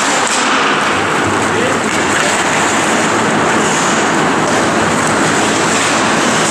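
Steady rink noise of an ice hockey game in an indoor arena: skates on the ice and spectators' voices blended into an even, loud hiss.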